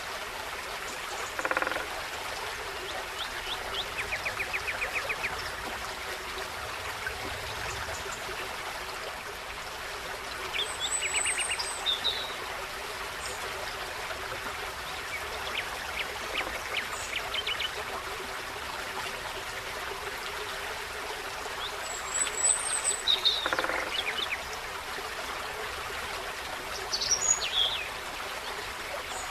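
A forest stream babbling steadily, with scattered songbird calls: short trills, chirps and a few high whistled notes at irregular intervals.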